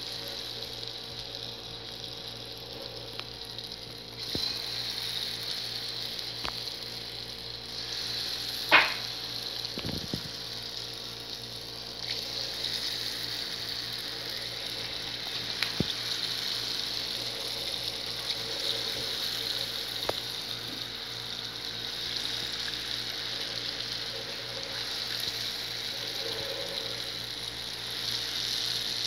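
Balls of yeast dough deep-frying in hot oil, with a steady sizzle and scattered small pops. About nine seconds in there is one much louder sharp crack.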